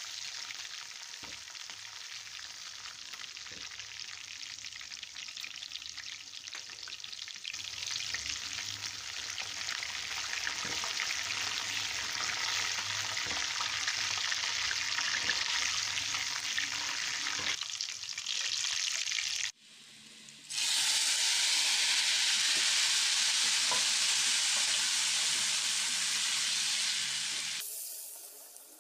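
Hot oil sizzling as a tarka of garlic, whole red chillies, cumin and curry leaves fries, stirred with a spatula. The sizzle grows louder partway through, stops for a moment about two-thirds of the way in, comes back louder and steady, then dies away near the end.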